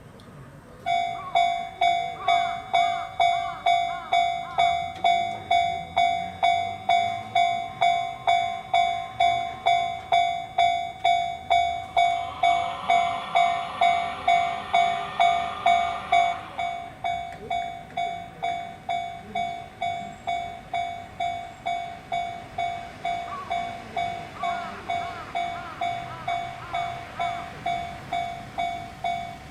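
Japanese railway level-crossing warning bell starting about a second in and ringing a steady electronic ding about twice a second. Midway there are a few seconds of rushing noise, and the bell is a little quieter after it.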